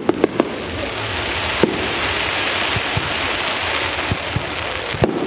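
Fireworks display: a few sharp bangs of bursting shells near the start, another about a second and a half in and a couple near the end, over a continuous crackling hiss.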